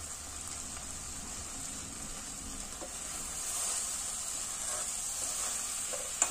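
White pea and potato curry sizzling in an open metal kadai over a gas flame, with a spoon scraping and stirring through it from about halfway. A sharp clink of the spoon against the pan near the end.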